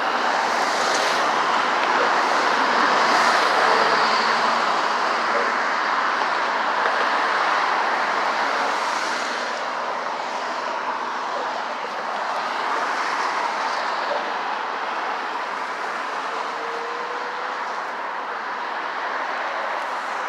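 Train passing over a road-level railroad crossing: a steady rumble of wheels on rail that is loudest about three seconds in and slowly eases off.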